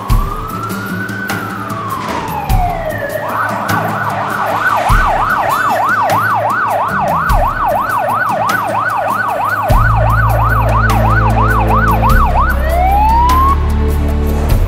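Fire engine siren: a slow rising and falling wail that switches about three seconds in to a fast yelp of roughly three sweeps a second, then goes back to a rising wail near the end. Background music with a deep bass line plays under it, louder from about ten seconds in.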